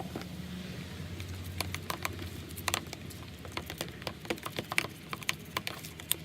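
Irregular light clicks and taps of a utensil stirring a mixture of clear glue, hot water and baking soda in a bowl, over a low steady hum.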